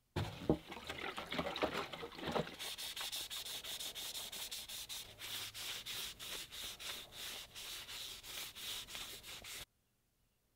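A cloth rag rubbing teak oil into a wooden sword handle in quick, even back-and-forth strokes, after a couple of seconds of irregular handling knocks. It cuts off suddenly near the end.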